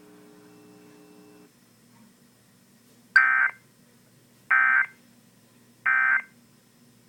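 Three short bursts of Emergency Alert System digital data tones, the SAME end-of-message code that closes the alert. Each burst lasts about a third of a second, and they come roughly 1.3 seconds apart. Before them a faint steady hum cuts off about a second and a half in.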